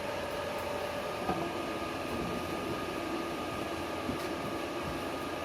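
Strad 160 KS welding inverter idling, its cooling fan running with a steady hum. A light knock about a second in, after which the pitch of the hum's tone drops.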